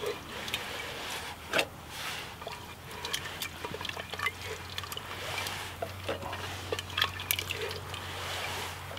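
A spoon working through thick stew in the pressure cooker pot: irregular wet squelches and slops, with occasional sharp knocks of the spoon against the pot.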